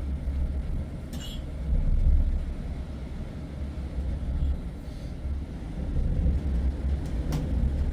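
Low, gusty wind rumble that swells and eases, loudest about two seconds in and again near six seconds, with a faint click or clink about a second in and another near the end.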